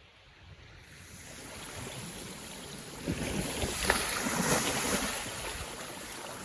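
Wind gusting over the microphone with waves washing on the lakeshore, a rushing noise that builds from about a second in and is loudest around the middle.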